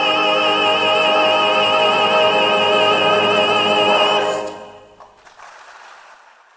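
Operatic tenor holding a long final note with a wide vibrato, which stops about four seconds in. A faint noise fades away after it.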